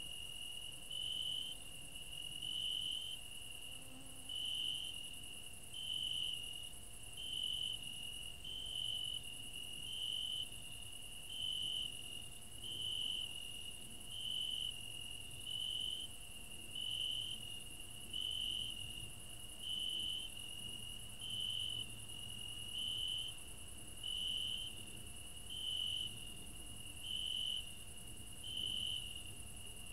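Crickets chirping: a steady high trill that swells in even pulses about every second and a half, over a fainter, higher continuous insect buzz.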